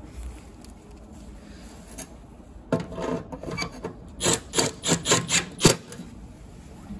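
A screw being turned into the furnace's sheet-metal bracket with a hand screwdriver. A scrape comes about three seconds in, then a quick run of short strokes, about five a second, for a second and a half.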